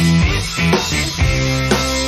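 Rock music with sustained guitar notes and a steady drum beat about twice a second, without singing.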